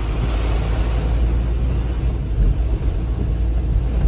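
Storm heard from inside a moving van's cabin: a steady, loud, deep rumble of wind buffeting the van and road noise, under the hiss of heavy rain on the windscreen.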